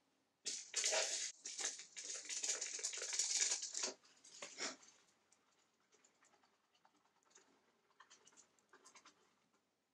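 Paper instruction leaflet rustling and crackling as it is handled, loud for the first few seconds. After that comes faint, irregular scratching and ticking from a small stick stirring two-part adhesive on the paper.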